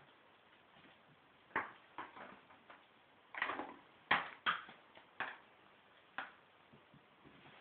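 A hand knocking on a door: about seven sharp knocks, unevenly spaced, some quick pairs.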